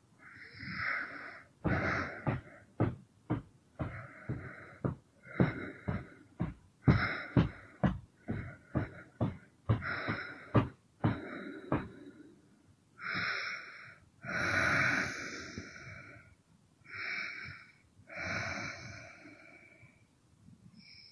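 A woman's breathy, wheezing breaths. For about ten seconds she makes a fast run of short puffs, about three a second, then four or five longer breathy exhalations.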